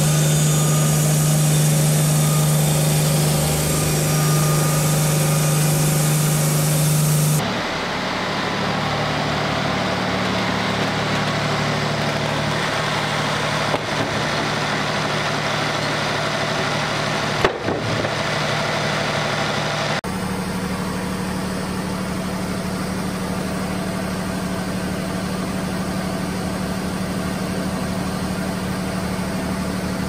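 Diesel engine of a Wood-Mizer LT40 sawmill (Yanmar) running steadily, with the sound changing abruptly twice and two brief knocks in the middle. In the last part the engine is running an automatic exhaust regeneration.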